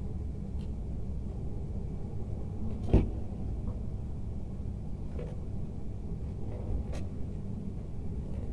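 Steady low rumble in the background, with one sharp click about three seconds in and a few faint ticks, from copper wire ends being twisted together by hand and with combination pliers.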